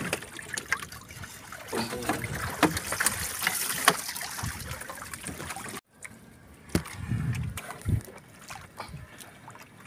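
Water splashing and dripping off a netted bubo fish trap as it is hauled up over the side of a wooden outrigger boat, with repeated knocks and clatter of the trap's frame against the hull. The sound cuts out for a moment a little past halfway, then a few knocks and dull thumps follow.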